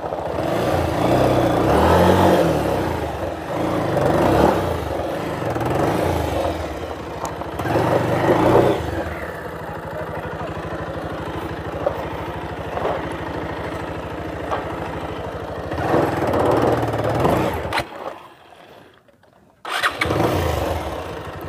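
Motorcycle engine revved in repeated surges as the bike struggles over loose rock with its tyre stuck, settling to steadier low running between the surges. Near the end the sound drops away for about two seconds, then the engine returns.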